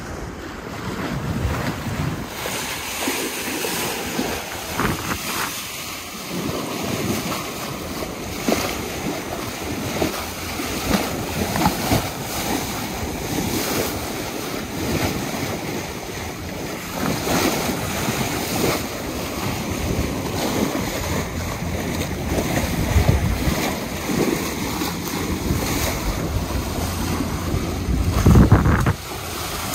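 Wind buffeting the microphone over the rush and splash of sea water along the hull of a moving boat at sea, surging unevenly, with a louder burst near the end.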